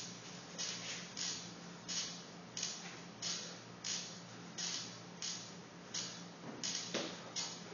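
Hard, hissing breaths, about three every two seconds, in rhythm with fast kipping pull-ups, over a steady low hum.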